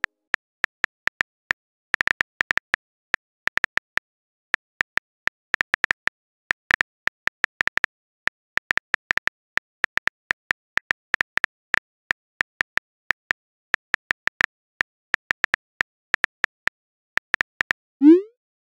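Phone keyboard clicks, a fast, irregular run of taps as a text message is typed. Near the end a short rising whoosh sounds as the message is sent.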